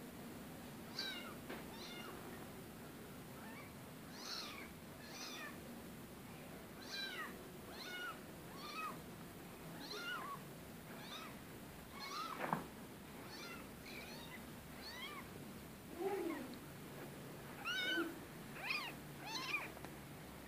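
Very young kittens mewing while they are picked up and handled: many short, high-pitched cries a second or so apart, with a few louder ones near the end.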